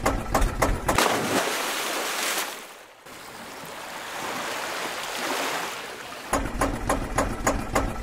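Water gushing and churning in a tank, dipping low about three seconds in and then swelling again. An engine chugging at about six beats a second is heard in the first second and returns suddenly about six seconds in.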